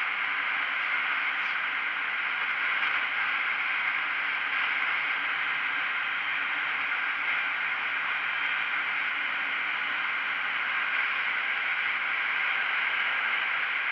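Steady rush of wind over the microphone of a camera on a KTM Duke 125 motorcycle riding at speed; it stays even throughout, with no distinct engine note above it.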